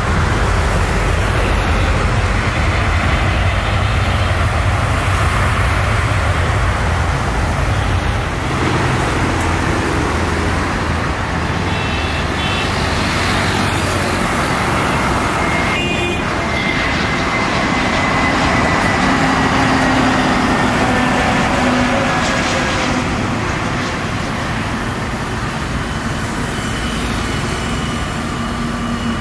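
Jet airliner engines: a loud, steady rush of noise with a deep rumble through the first half, then a faint whine that slowly falls in pitch.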